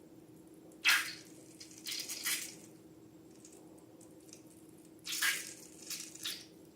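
Slime being squished and handled, making short wet squishing bursts: one about a second in, a couple around two seconds, and a few more near the end.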